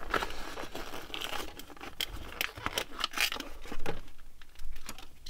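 A clear plastic blister pack on a diecast car's card being torn open by hand, crinkling and crackling in irregular bursts, with a brief lull about four seconds in.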